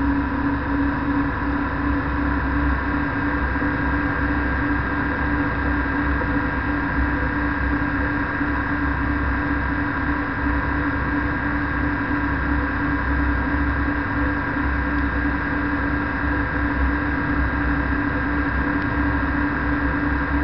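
Flex-wing microlight trike's engine and propeller droning at a steady pitch in cruising flight, with wind rumbling on the microphone.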